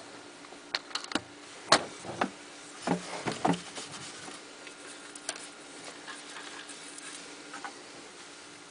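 Towel rubbing over toy model cars, with scattered small knocks and clicks as the cars are handled; the louder knocks come in the first few seconds, then only faint ticks.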